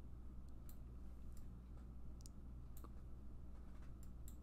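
Computer mouse clicking, about eight sharp clicks at irregular intervals, over a faint steady low hum.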